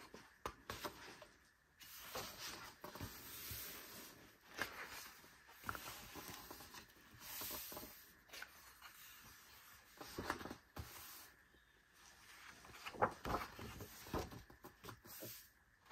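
Pages of a large photobook being turned and smoothed down by hand: faint rustling and sliding of paper, with a few soft taps and flaps of pages later on.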